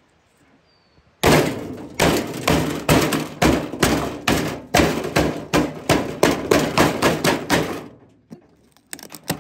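Sledgehammer smashing an electronic appliance: a fast run of heavy blows, about three a second, for some six seconds, then a few lighter knocks near the end.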